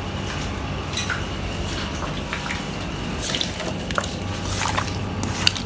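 Raw chicken wings being mixed by hand in their marinade: scattered wet squelches and light clicks over a steady low hum.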